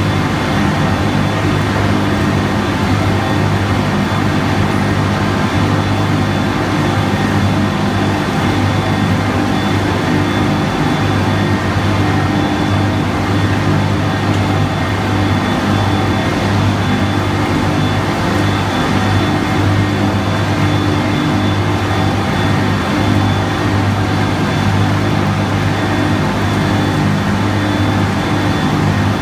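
Göweil LT Master baler-wrapper running: a steady, loud machinery drone with a constant low hum and a faint high whine.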